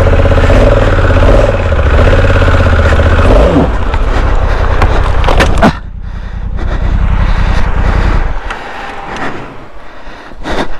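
Off-road motorcycle engine revving hard under load on a steep climb, then cutting off abruptly about halfway through. A quieter, lower rumble follows and fades, with a few sharp knocks near the end.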